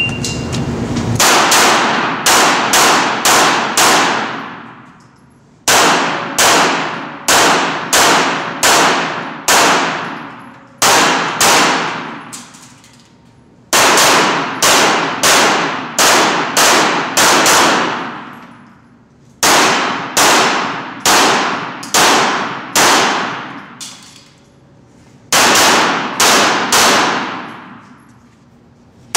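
Strings of 9×19mm pistol shots from a CZ75 SP-01 Shadow, about three shots a second in runs of four to seven, with pauses of a second or two between strings. Each shot rings out with a long echo off the walls of the indoor range.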